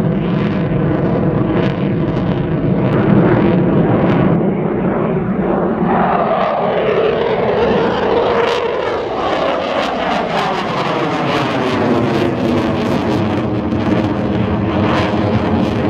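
Eurofighter Typhoon's twin Eurojet EJ200 turbofans running loud as the jet passes overhead. Its whine falls in pitch about halfway through as it goes by, followed by crackling jet noise.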